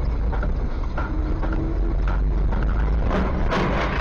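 Steady low rumble of a car's engine and tyres as heard from inside the moving car through a dashcam microphone, with a few faint clicks. Near the end a broader hiss comes in.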